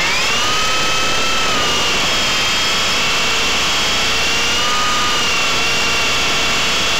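Blade 120 SR electric RC helicopter's motor and rotor whining, heard from a keychain camera mounted on the helicopter. The pitch rises as it spools up at the start, then holds steady in flight, wavering a little.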